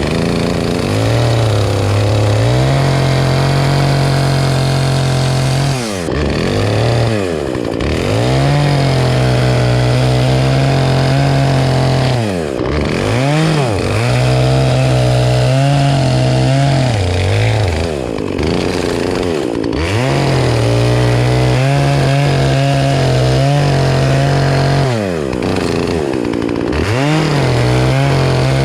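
Two-stroke chainsaw running at high revs while cutting a tree. The engine note drops and climbs back about eight times as the throttle is eased off and opened again.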